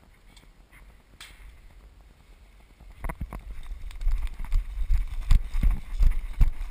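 Footsteps of a person running over the ground, a quick irregular series of heavy thumps with knocks of gear and jostling, starting about three seconds in.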